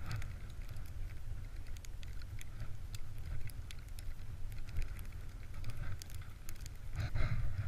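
Wind buffeting a small camera's microphone: a steady low rumble, with scattered sharp clicks and crackles over it.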